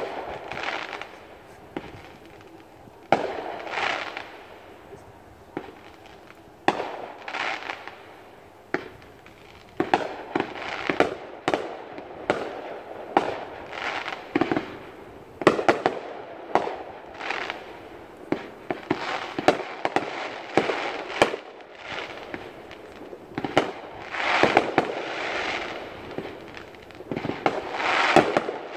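Fireworks display: shells bursting in sharp bangs, a few at first and then in quick succession from about ten seconds in, with longer swells of noise between the bangs.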